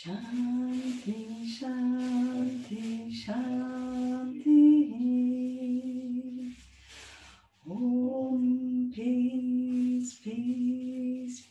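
A woman chanting in short held phrases, mostly on one level note, stepping briefly higher about four and a half seconds in, with a pause for breath about seven seconds in.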